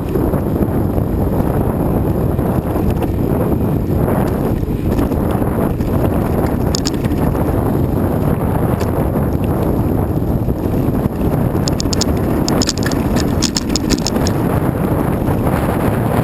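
Wind buffeting the microphone of a rider moving over a rough track, with rattling and sharp clicks from the ride. There is a dense run of clicks about twelve seconds in.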